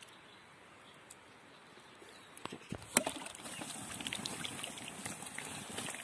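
Quiet for the first two seconds or so, then a ground fire's ash bed and embers start crackling and hissing about three seconds in, opening with one sharp crack and going on as a dense run of small ticks.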